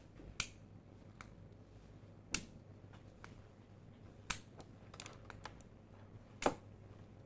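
Foley bone-breaking effect: a series of sharp snaps and cracks, four louder ones about two seconds apart with fainter crackles between them.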